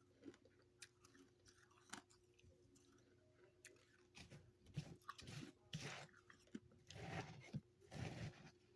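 Chewing freezer frost: a few sharp crunches in the first two seconds, then a run of louder crunching bites from about four seconds in.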